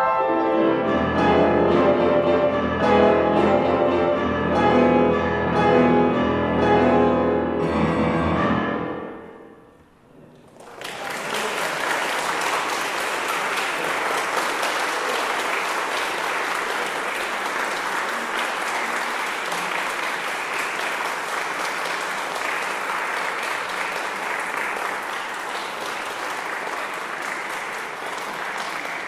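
Grand piano playing the closing chords of a classical piece, the last chord dying away about nine seconds in. About a second later an audience breaks into steady applause.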